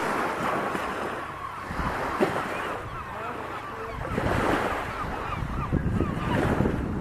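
Bay water washing at the shore with wind buffeting the microphone, the wind rumble growing heavier about halfway through. Many short calls from a crowd of seabirds run faintly through it.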